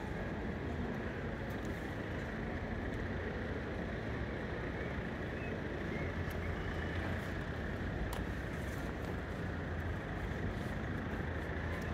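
Steady outdoor city ambience, mostly a low, even rumble of road traffic.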